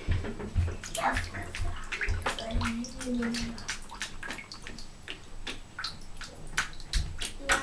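A cat splashing and sloshing water in a bathtub with its paws, in irregular splashes.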